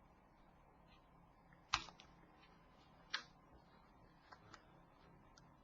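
Sharp clicks as the clips holding a Nokia 3510i's metal frame are prised open with a plastic opening tool: a loud click just under two seconds in, another about a second and a half later, then a few faint ticks.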